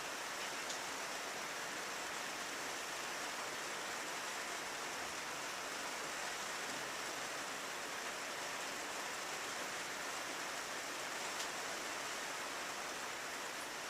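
Steady rain on a window pane, an even hiss with a couple of faint sharper drop ticks.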